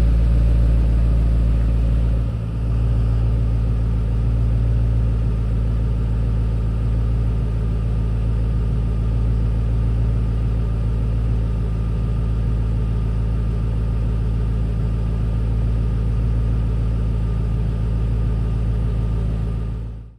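Ford Mustang's engine idling steadily, running on its newly fitted battery. The idle dips briefly about two seconds in, then holds level until it cuts off.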